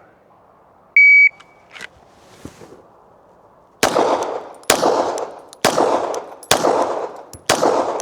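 A shot timer gives one short, loud beep about a second in. About three seconds later a 9mm Glock 17 fires five shots, evenly spaced a little under a second apart, each ringing out briefly.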